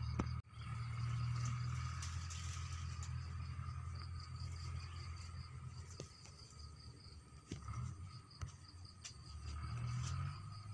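Insects chirping steadily, a high pulsing note over a steady lower one, under a low rumble that is loudest over the first few seconds and again near the end, with a few faint clicks.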